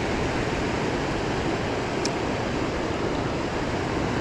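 Steady rushing of river water close to the microphone, with a faint short tick about two seconds in.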